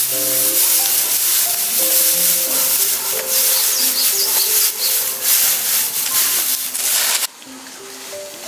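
Fish sizzling and crackling as it grills over an open fire, a dense hiss with fine crackles, under background music with a slow melody. The sizzling cuts off suddenly about seven seconds in, leaving only the music.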